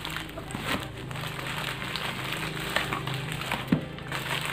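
Plastic courier mailer bag rustling and crinkling as it is handled, with scattered light clicks and one sharper tap about three-quarters of the way through. A low steady hum sits underneath.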